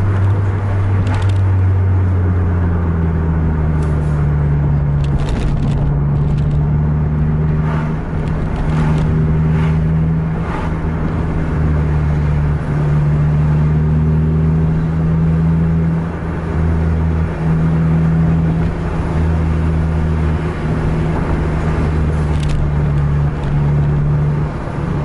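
Heavy bus diesel engine pulling steadily at highway speed in a freshly upshifted gear, heard from inside the cabin; its pitch steps up about two seconds in and then holds steady.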